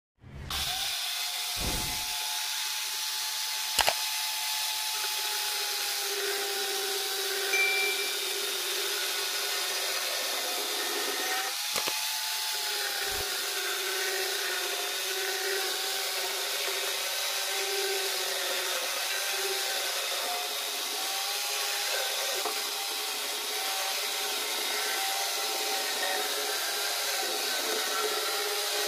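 Angle grinder converted into a mini chainsaw, its RYU chain running and cutting through a plank of Jati Belanda wood; the motor's steady whine dips and recovers in pitch as the chain bites. A brief sharp crack about four seconds in.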